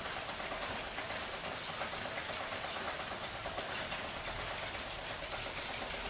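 Steady rain falling, with scattered drops pattering.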